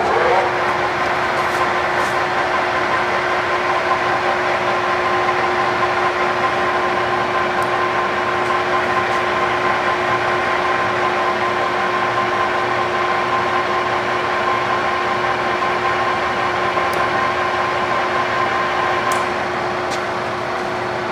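Lansing Model G 16-inch engine lathe running under power feed: a steady mechanical whine of the headstock gearing with a higher ringing tone that fades away about nineteen seconds in.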